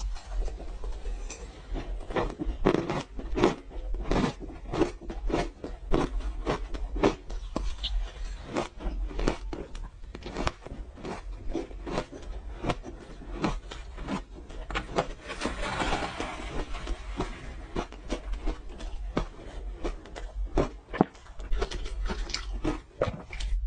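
Close-up biting and chewing of frozen orange ice, a rapid run of sharp crunches, with a longer grinding crunch about sixteen seconds in.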